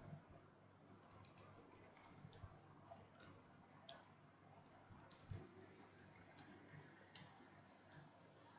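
Faint computer keyboard typing: scattered keystroke clicks, some in short quick runs, with a soft low thump about five seconds in.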